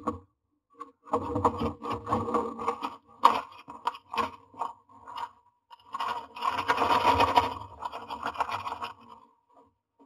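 A common myna moving about inside a wooden nest box, its feet and the dry grass nesting material scraping and rustling against the wood. The sound comes in two bouts of scrabbling with a few sharp taps between them.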